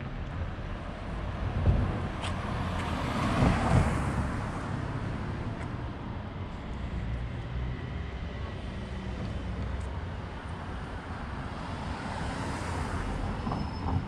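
Road traffic: cars driving past on the street close by over a steady low rumble, one passing loudly about three and a half seconds in and another, quieter, near the end.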